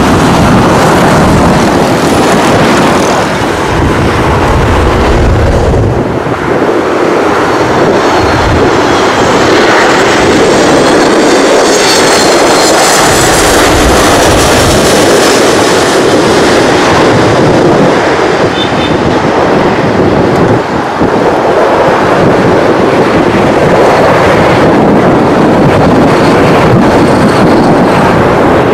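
Boeing 737 MAX jetliner's CFM LEAP-1B engines passing low overhead on final approach with gear down: a steady, loud jet roar with a high engine whine that falls in pitch about halfway through as the aircraft goes over.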